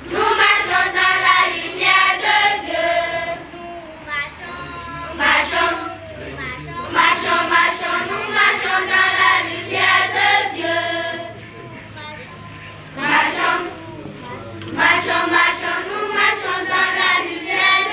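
A group of children singing a song together in chorus, phrase after phrase with brief pauses between.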